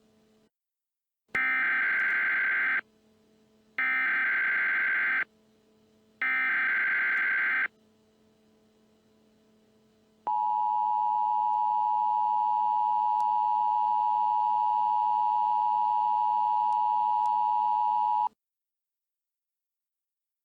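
Emergency Alert System tones: three short bursts of the SAME digital header code, each about a second and a half long with a second's gap between them, then the two-tone EAS attention signal held steady for about eight seconds before it cuts off. Together they announce that an emergency alert message is about to be broadcast.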